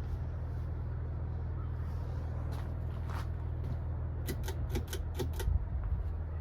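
52-inch Harbor Breeze Springfield ceiling fan running with a steady low hum. About four seconds in comes a quick run of six light clicks.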